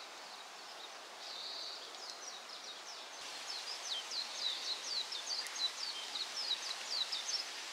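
Faint outdoor ambience with a bird chirping: a quick series of short, high, falling notes that starts about two seconds in.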